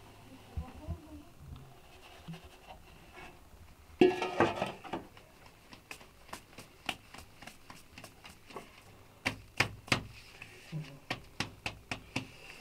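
Flour being sifted by hand through a round sieve over a metal tray: a loud knock about four seconds in, then a run of sharp, irregular knocks as the sieve frame is shaken and tapped, about two or three a second.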